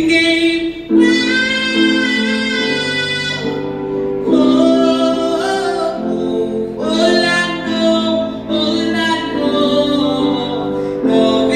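A busker singing into a microphone, amplified through a small floor speaker, in long phrases with held notes.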